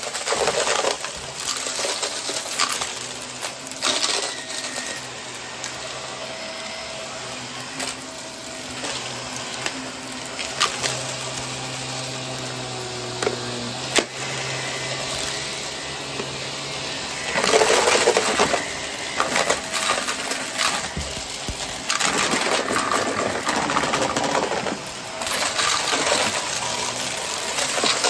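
Close-miked ASMR trigger sounds: busy, crisp clicking, tapping and rustling, with louder spells about two-thirds of the way through and near the end.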